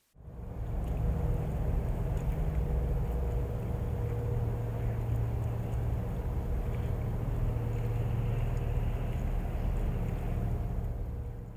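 Steady low rumbling drone with a faint steady hum, the sound of a sound-art installation's recording. It starts abruptly and fades out near the end.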